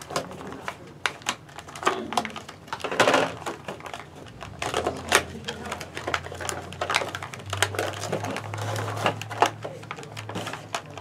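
Clear plastic bags and cardboard booster boxes of prepainted plastic miniatures being handled and opened: irregular small clicks, crinkles and rattles, with a denser rustle about three seconds in. A faint low hum sits underneath from about halfway on.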